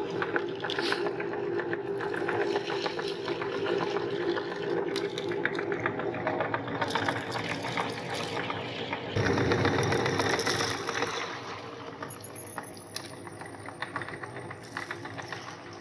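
Meat grinder grinding peanuts: a steady hum under a dense crackle of nuts being crushed. A louder burst of noise comes about nine seconds in, and the grinding is quieter after that.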